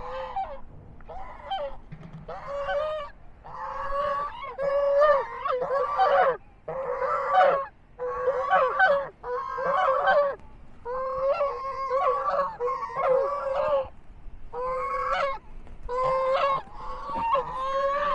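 White domestic geese honking over and over, one call following another with brief pauses.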